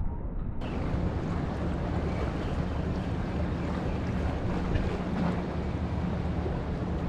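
Wind on the microphone and sea water washing against breakwater rocks, over a steady low hum.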